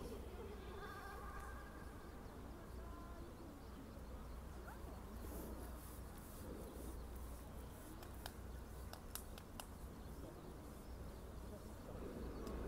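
Quiet outdoor ambience: a steady low rumble with faint distant voices, and a few sharp clicks between about eight and nine and a half seconds in.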